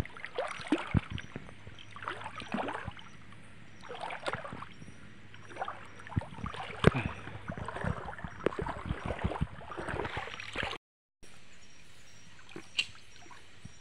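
Wading through a shallow river: water sloshing and splashing around the legs in irregular strokes. About eleven seconds in it cuts off abruptly, leaving a quieter steady hiss with a couple of faint clicks.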